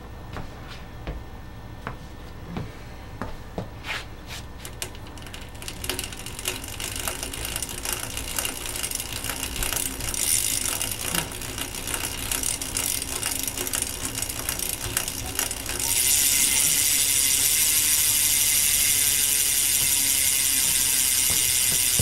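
BMX rear hub freewheeling, its pawls ratcheting. Separate clicks speed up as the wheel spins faster, and about two-thirds of the way through they merge into a loud, steady buzz.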